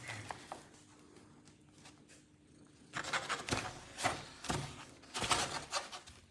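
Near-quiet with a faint hum, then from about three seconds in a series of short, soft scrapes and rustles of fur and fabric as a cat shifts and paws on a fabric window hammock while a hand teases it.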